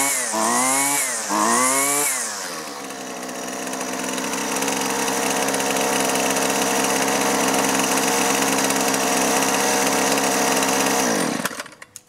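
Husqvarna 128LD string trimmer's small two-stroke engine, freshly repaired with new fuel lines and a new fuel filter and with its carburetor adjusted. It is revved up and down twice, then settles to a steady idle, and near the end it is switched off and winds down.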